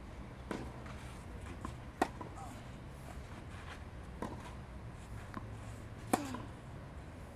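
Tennis ball struck back and forth in a rally on a clay court: four racket hits roughly two seconds apart. The second and fourth hits are the loudest.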